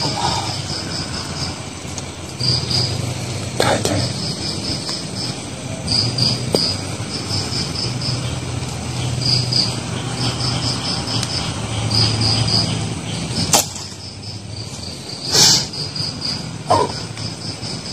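Crickets chirping at night in repeated short pulsed trills, one burst after another. A few brief sudden noises cut through, the loudest about fifteen seconds in.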